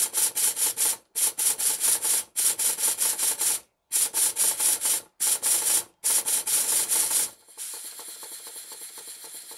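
Stuart Double 10V model steam engine running fast on compressed air, its exhaust chuffing about eight beats a second in several short runs broken by brief silences. It now runs with a lot more power, with one slide valve turned round and re-timed and the other side not yet done. After about seven seconds the beats stop and only a quieter steady hiss of air remains.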